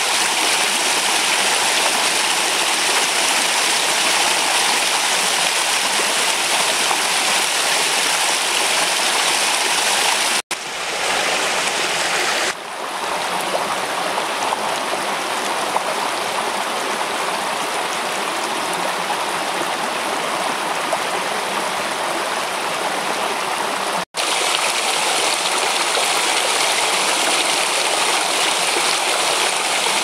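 Shallow rocky mountain stream rushing and gurgling over boulders, a steady noise of running water. It drops out twice for a split second, about a third of the way in and again near four-fifths, where the recording is cut.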